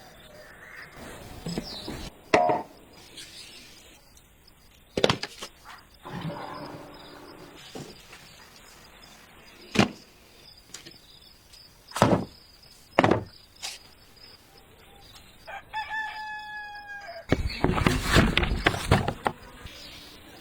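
A rooster crowing once, about three-quarters of the way in, amid a series of sharp, irregular knocks. Near the end there is a loud, rough noisy stretch of about two seconds.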